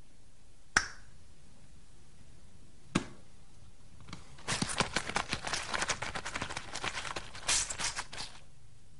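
Two single sharp clicks, then about four seconds of dense crackling as adhesive tape is pulled off a roll and wound around a shaft.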